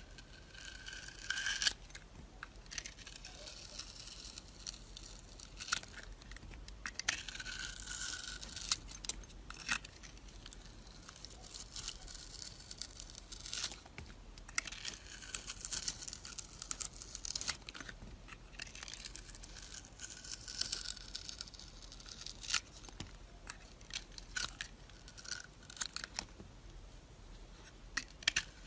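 Knife cutting through dry soap: several long scraping strokes of a second or two each, with crisp crackles and sharp clicks in between.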